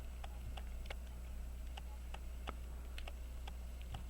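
Steady, regular ticking of a watch or clock escapement, about four light ticks a second, over a low electrical hum.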